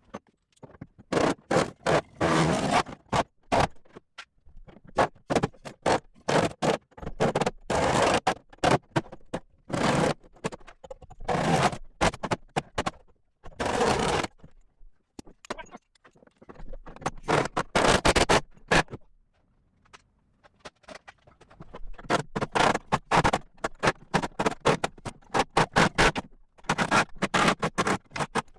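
Metalwork on a sheet-steel floor patch: repeated bursts of rapid scraping and clattering, each a second or two long, with short pauses between.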